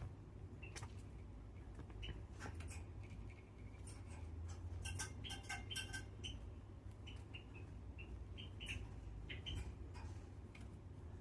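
Java sparrows giving short, soft chip calls mixed with scattered light clicks and taps, with a busier run of calls about five seconds in.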